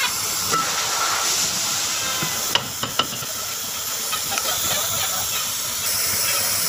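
A steady hiss, with a few light sharp clicks about two and a half and three seconds in.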